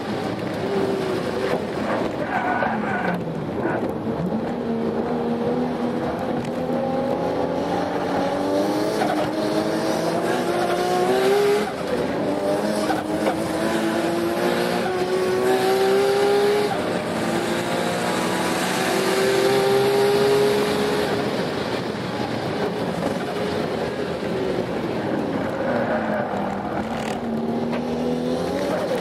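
Nissan RB26 straight-six with a single T04Z turbo, heard from inside the cabin of a race-prepared Toyota Altezza at full throttle on a circuit. The engine pitch climbs in long pulls through the gears and drops at each upshift, about twelve and seventeen seconds in. Past two-thirds through it lifts off, the pitch falls away, and it climbs again near the end.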